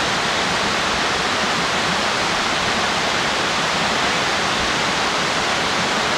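A tall waterfall cascading down a rock gorge into a pool: a steady, unbroken rush of falling water.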